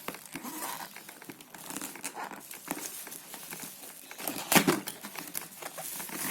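Packaging being opened by hand: plastic and paper crinkling and rustling in quick small crackles, with one louder sharp crackle about four and a half seconds in.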